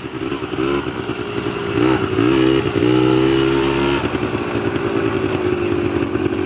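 ATV engine running under way, its pitch rising and falling with the throttle a few times, then holding steady for the last couple of seconds.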